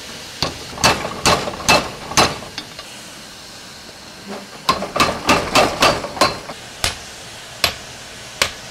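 Forging hammer blows on red-hot steel under a mechanical power hammer. A run of five strikes comes first, then a pause, then a faster run at about four blows a second, then slower single blows near the end. A steady hiss of steam lies under it all.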